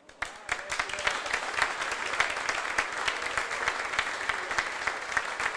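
Audience applauding: the clapping starts abruptly and reaches full strength within the first second.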